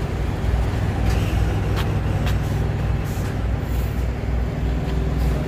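Steady low rumble of an idling semi truck's diesel engine, with a few faint clicks.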